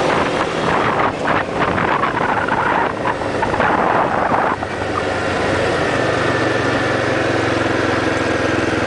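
Small motor vehicle's engine running as it is ridden slowly along a street, with wind rushing over the microphone for a few seconds in the middle; the engine settles into a steady low hum near the end.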